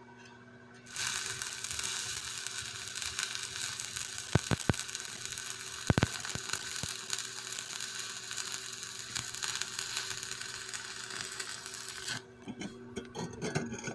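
Stick-welding arc from a 6013 electrode on steel square tube. The arc strikes about a second in, then crackles and sizzles steadily for about eleven seconds, with a few sharp pops along the way, and cuts off suddenly. A low steady hum runs underneath, and a few light clicks follow near the end.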